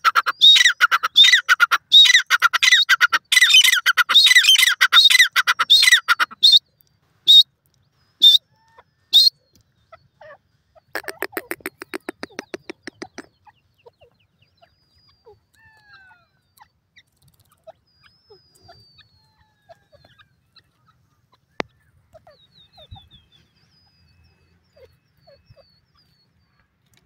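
Grey francolin calling: a loud, rapid run of repeated shrill notes for the first six seconds or so, then three single notes about a second apart. A short fast rattle follows a little later, and after that only faint scattered chirps.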